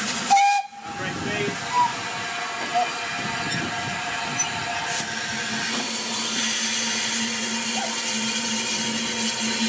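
Steam hissing steadily from the 1906 Hunslet-built narrow-gauge steam tank locomotive 'Russell' as it stands with steam up, with a steady low hum beneath, briefly dropping out about half a second in.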